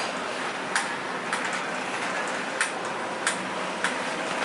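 Footsteps clicking on a hard floor at a steady walking pace, about one every 0.6 seconds, over a steady hiss of background noise.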